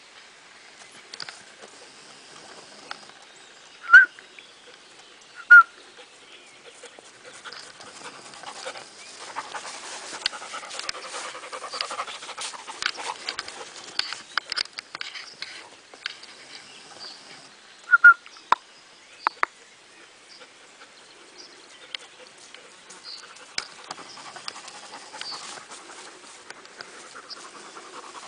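German shepherd panting, with a few short, loud, sharp sounds: two about four and five and a half seconds in, and a cluster of three near eighteen to nineteen seconds.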